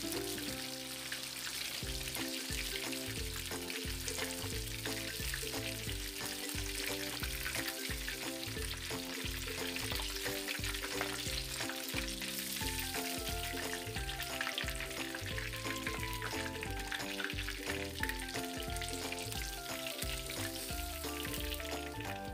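Tilapia pieces frying in hot oil, a steady sizzle. Background music with a pulsing bass line plays underneath.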